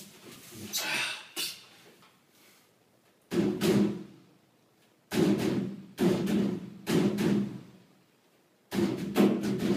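The metal cabinet of a tumble dryer being drummed on, giving hollow thuds with a low ringing pitch. The first hits come about three seconds in, then single hits roughly a second apart, then a quick run of hits near the end.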